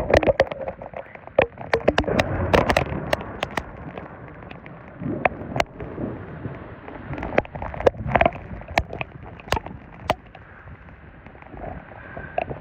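Steady rain falling, with many sharp, irregular taps of drops striking close to the microphone.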